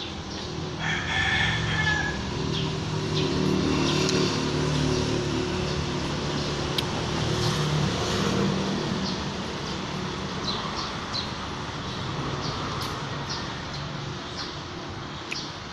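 A rooster crows once, about a second in, over the low hum of a passing vehicle engine that swells and then fades after the middle, with short bird chirps scattered throughout.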